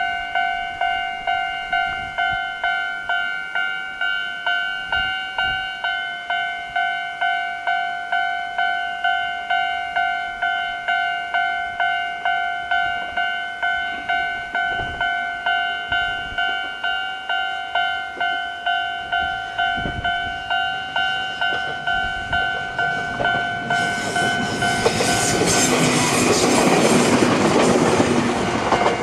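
Japanese level-crossing alarm bell of the older electronic type, ringing a two-tone ding that repeats at an even pace. About 24 seconds in, a Jōmō Electric Railway 700 series electric train passes over the crossing with a loud rushing rail noise for about five seconds, while the bell keeps ringing.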